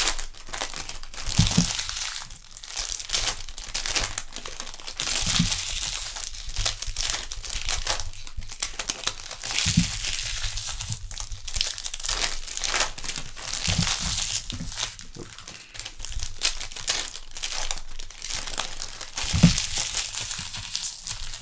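Trading card pack wrappers being torn open and crumpled one after another, a crackly crinkling that goes on throughout, with a few dull knocks on the table.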